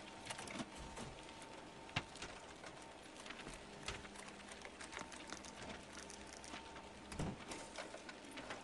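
Quiet, with faint scattered taps and clicks over a low steady hum; a slightly sharper tap comes about two seconds in and another near the end.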